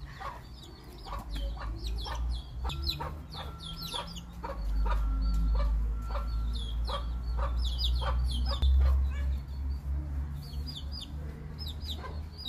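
Chickens calling: many short, high calls in quick succession over a low steady rumble.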